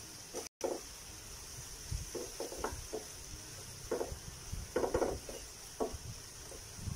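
Wooden spatula stirring shrimp in a frying pan: short scraping strokes in irregular bunches over a faint, steady sizzle.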